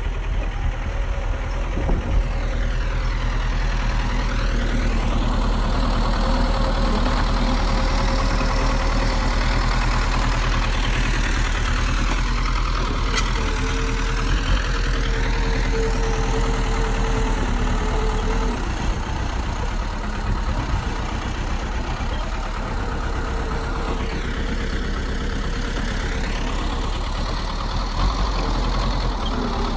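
Heavy diesel engine of a bulldozer running steadily, a deep rumble with a steady mid-pitched tone over it.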